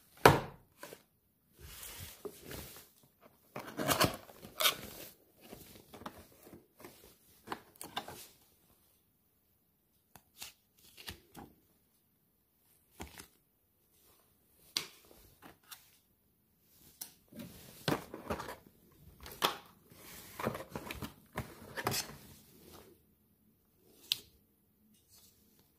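Cardboard box and paper instruction leaflet being handled: irregular rustling, sliding and light knocks, with short quiet pauses. A sharp knock right at the start as the box is set down on the table is the loudest sound.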